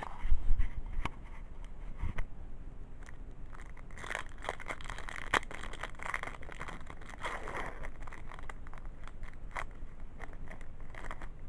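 A Yu-Gi-Oh! booster pack's wrapper being torn open and crinkled by hand, with irregular small clicks and rustles of handling, and a few louder knocks in the first couple of seconds.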